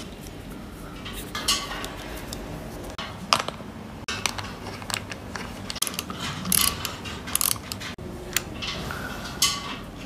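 Irregular metallic clicks and clinks of a hex wrench and small bolts as a saddle is fastened to the clamp of a dropper seat post.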